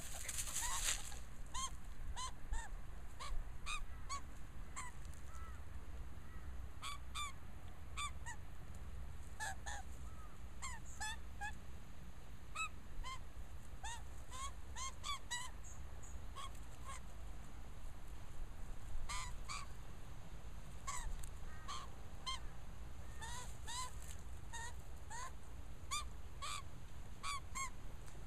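Australian magpie giving many short, scratchy calls, one after another at irregular intervals. A brief rustle comes right at the start.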